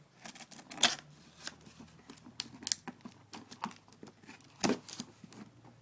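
A cardboard shipping package being handled and opened by hand: irregular clicks, crackles and tearing of tape and cardboard, loudest about a second in and again near five seconds in.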